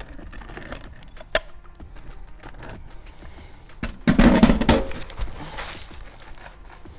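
Hand hammer striking the flashing and shingles around a roof pipe boot: one sharp tap a little past a second in, then a quick clattering run of blows about four seconds in, trailing off into softer scraping.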